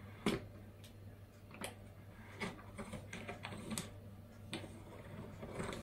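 Hand-cranked jar-lid seaming tool working a tin lid onto a glass jar: irregular light metal clicks and knocks, the loudest about a quarter of a second in.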